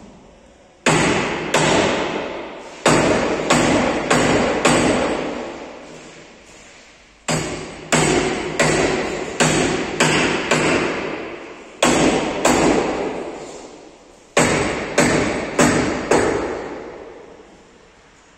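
Hammer blows on a steel truck cab: about twenty hard strikes in groups of two to six, each ringing out and dying away, with short pauses between the groups. The cab is being straightened while held under chain pull on a straightening bench.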